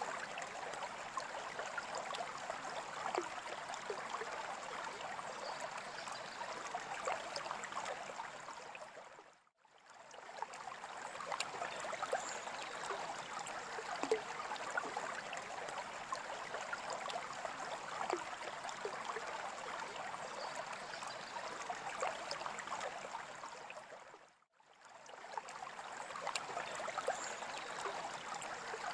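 Steady trickling and splashing of moving water in a freshwater aquarium, with small drip-like splashes throughout. It fades briefly to silence and back twice, about ten and twenty-four seconds in.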